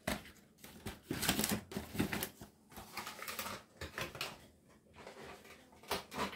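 A cardboard box of cling film being picked up and handled: irregular rustling with sharp taps and clicks.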